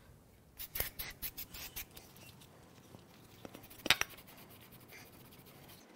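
Hand tool scraping the carbon ridge at the top of a 3.6L Pentastar V6 cylinder bore, in short strokes: a quick run of about seven starting half a second in, a few more later with two louder scrapes near the middle, then faint rapid ticking. The carbon ridge is keeping the piston rings from clearing the top of the bore.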